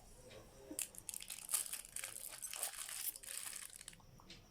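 Packaging being handled and crinkled while a watch is unboxed: irregular rustling and crackling, busiest from about a second in until near the end.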